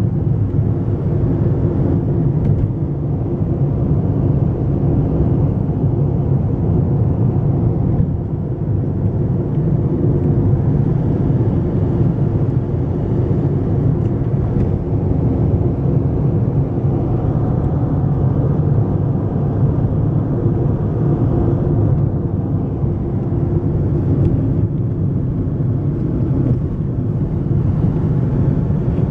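Car running at road speed, heard from inside the cabin: a steady low drone of engine and tyre noise.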